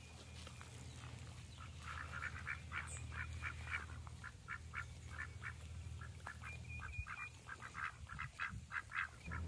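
Ducks quacking: a long run of short quacks in quick succession, beginning about two seconds in.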